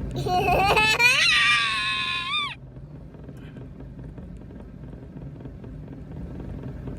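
A young child gives one long, high-pitched squeal that rises in pitch and cuts off suddenly about two and a half seconds in. After it, only the low steady rumble of the boat's motor and water remains.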